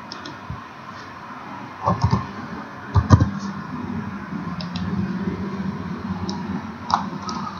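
Computer mouse clicks and a few keyboard keystrokes while a label is typed and placed in a drawing program. They come as scattered single clicks, the heaviest around two and three seconds in, over a steady low background hum.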